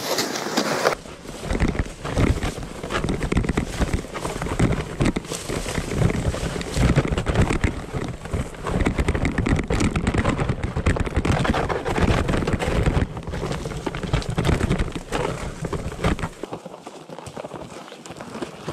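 Plastic ice-fishing sled dragged over crusted snow and through dry reeds, scraping and knocking unevenly, with footsteps crunching in the snow. It quietens about sixteen seconds in as the sled comes to a stop.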